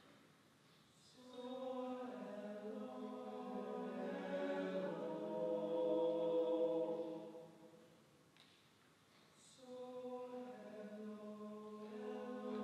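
Men's a cappella choir singing soft, sustained chords in two phrases. Each phrase swells in and then fades away.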